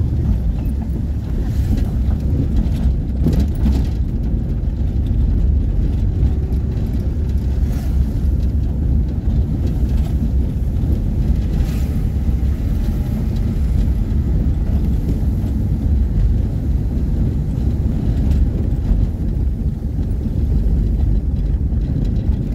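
Steady low rumble of a vehicle in motion, its engine and road noise, with wind buffeting the microphone.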